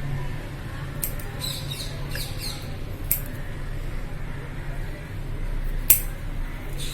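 Scissors snipping thorny thoothuvalai (Solanum trilobatum) stems, three sharp snips about one, three and six seconds in, over a steady low hum, with a few short high chirps after the first snip.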